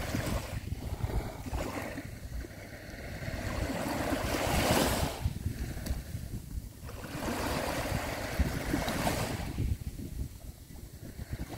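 Small sea waves washing onto the shore, swelling and falling back in slow surges, twice in a few seconds. Wind buffets the microphone.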